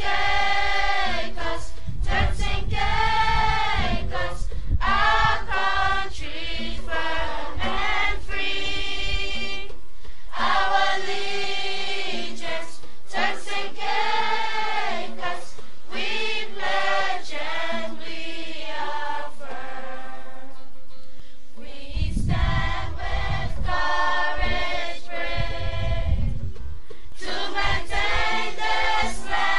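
Background music of a choir singing in long held notes.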